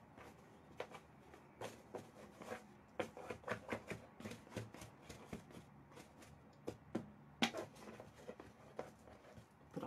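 Hands pressing and tucking fabric lining into a cardboard box: irregular light rustles and taps, with one sharper tap about seven and a half seconds in.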